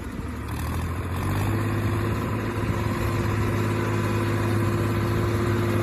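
Swaraj 744 FE tractor's three-cylinder diesel engine running steadily under load, pulling a fully loaded sugarcane trolley; it grows louder from about a second in as it comes closer.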